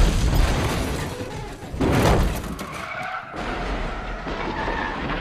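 Edited-in vehicle crash sound effect: tyres skidding, heavy impacts and shattering glass. Loud hits come at the start and again about two seconds in.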